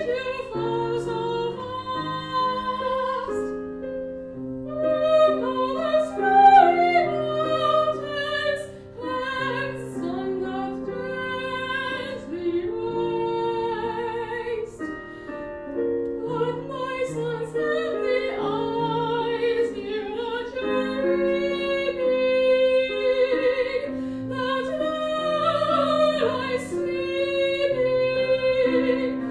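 Operatic soprano singing an aria with vibrato, accompanied by piano.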